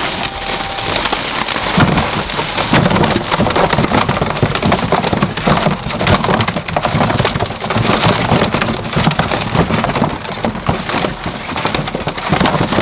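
Woven plastic sack rustling and crinkling as it is shaken empty into a plastic tub, with young sailfin dragons' claws scrabbling on the plastic. Together they make a dense, continuous crackle.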